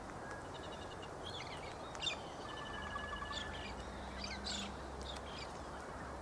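Wild birds calling outdoors: scattered short, sharp chirps and quick trilled series of notes, over a steady background hiss.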